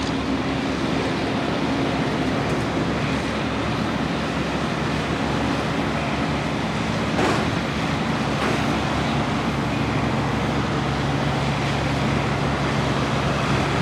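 Steady vehicle or traffic noise: an even rushing with a low hum underneath.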